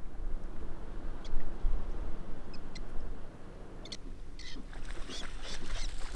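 Outdoor ambience with a low, steady rumble and short, high bird chirps, which come most often from about four seconds in.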